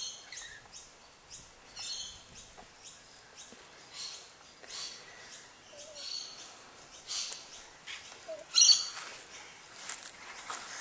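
Birds chirping: short high calls scattered through, the loudest a quick cluster about three-quarters of the way in.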